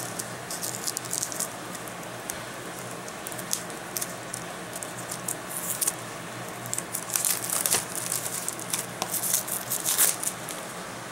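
Handling of a Blu-ray digibook package: scattered crinkling and small clicks, thickest in the second half.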